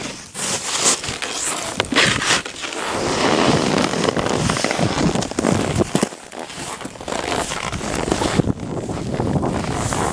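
Rushing, scraping noise of sliding down a packed snow run. After about six seconds it gives way to close crackling and rustling noise on the microphone.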